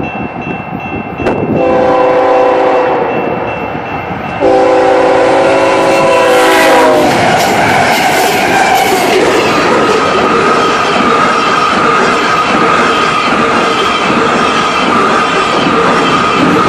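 A Canadian Pacific diesel freight locomotive sounds its horn in two long blasts for a grade crossing, the second one longer. The locomotive then rushes past loudly. Freight cars follow, rolling by with the clickety-clack of wheels over the rail joints.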